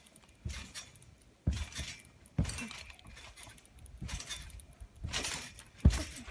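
Trampoline being bounced on: about six landings on the mat, each a thump followed by a brief jingle of the steel springs, the hardest landing near the end.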